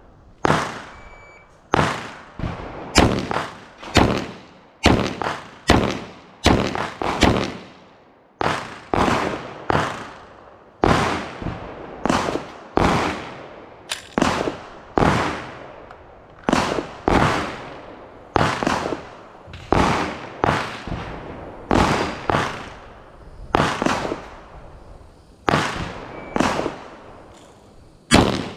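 Handgun shots fired one after another at a steady pace, about one a second, each sharp report trailing off in reverberation.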